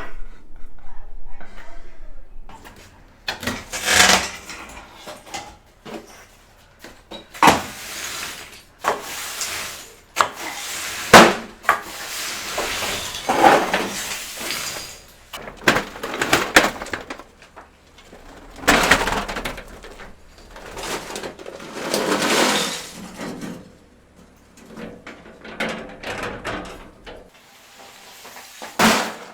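Demolition rubble being cleared up and dumped: repeated scraping and clattering crashes of broken plaster and debris, the loudest about eleven seconds in.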